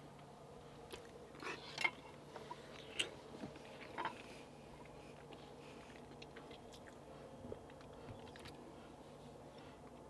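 A man chewing a bite of pot roast, with soft mouth smacks and clicks in the first four seconds, then quieter chewing over a faint steady hum.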